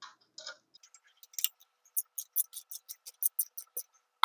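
Ratchet wrench clicking rapidly and evenly, about six sharp clicks a second, as a bolt is tightened.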